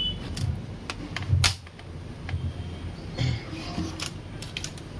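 Plastic bottom cover panel of a Sony laptop being pressed and snapped into place on the case, giving a series of irregular sharp clicks and light knocks.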